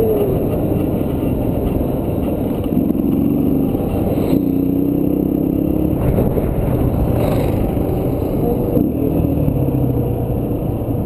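Dirt bike engine running under throttle, its pitch rising and falling as the rider works the throttle, with heavy wind rush over a helmet-mounted microphone.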